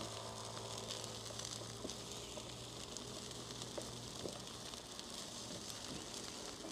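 Chicken curry and rice sizzling steadily on a hot flat-top griddle, with a few light taps of a metal spatula.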